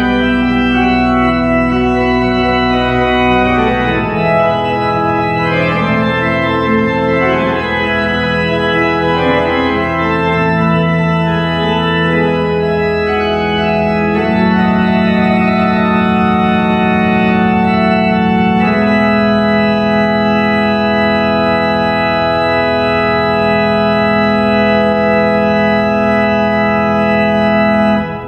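Pipe organ playing slow, sustained chords, with a deep pedal note under the first few seconds. Near the end, a final chord is held and then cut off abruptly.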